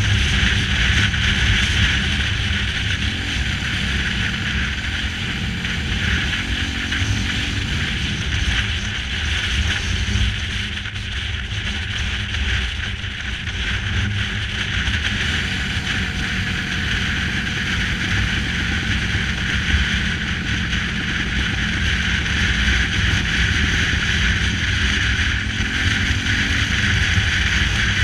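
Cruiser-style motorcycle engine running at road speed under a strong rush of wind on the microphone, a little quieter around the middle.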